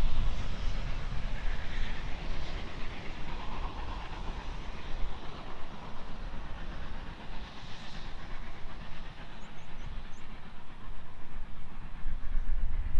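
Distant steam locomotive No. 2890 working its train away along the line, heard under heavy, uneven wind rumble on the microphone.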